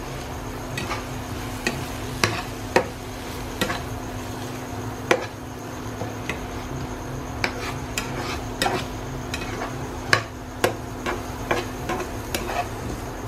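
A slotted metal spatula stirring mashed aubergine in a nonstick frying pan, scraping and tapping against the pan in irregular clicks about once or twice a second.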